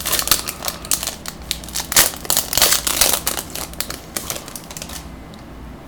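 Foil wrapper of a Bowman baseball card pack crinkling and tearing as it is opened by hand: a dense run of crackles that stops about five seconds in.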